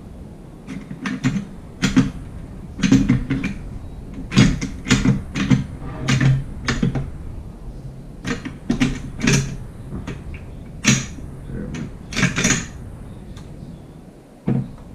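Metal parts of a Molot Vepr-12 shotgun's action being fitted together by hand: a long run of irregular sharp clicks and knocks of metal on metal, some with a dull thud.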